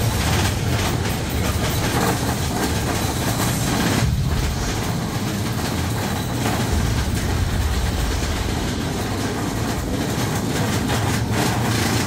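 Steady, loud rumbling and rattling of an amusement ride vehicle moving through a dark show scene.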